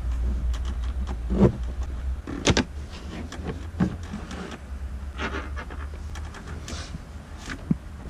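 Hard plastic dashcam mount parts knocking and clicking against the dashboard and windshield as they are handled and fitted: a series of short knocks, the loudest about a second and a half in. A low hum underneath fades about two seconds in.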